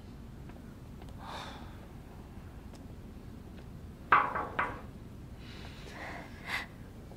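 Three quick knocks on a glass door about four seconds in, over a low steady room hum, with a fainter short sound near the end.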